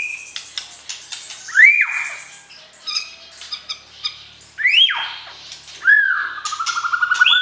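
White-rumped shama (murai batu) singing: loud, clear whistled notes that swoop up and fall away, about a second and a half in, near five seconds and again near six, with soft chips and clicks between them. A fast trill follows in the last second.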